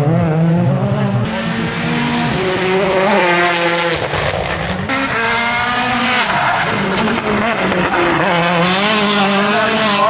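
Citroën DS3 WRC rally cars' 1.6-litre turbocharged four-cylinder engines revving hard. The pitch climbs again and again and drops at each gear change as the cars accelerate away.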